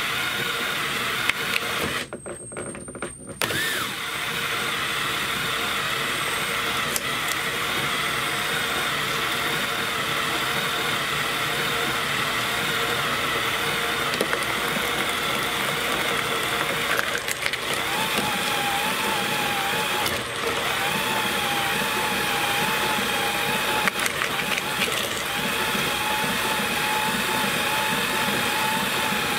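Electric motor turning a 3D-printed compost shredder's roller cutters with the hopper empty, running steadily. It cuts out briefly about two seconds in, and a steady whine joins in during the second half.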